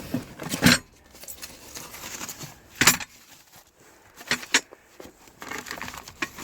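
A pack of small metal hardware parts being handled, with the parts clinking and rattling together in a few short bursts and some rustling in between.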